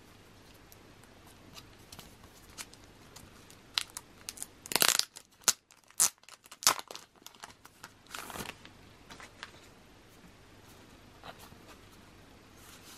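Clear plastic wrapping on a postcard pack rustling and crinkling as it is handled and opened, with short swishes of card against card. The loudest strokes come in a cluster about five to seven seconds in and again near eight seconds.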